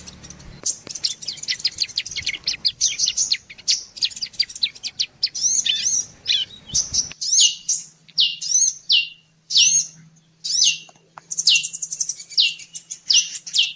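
Bird-lure recording of prinia and sunbird calls. For the first half there are rapid high chirps and trills. After an abrupt splice about halfway through, a sharp call sliding down in pitch repeats about once or twice a second.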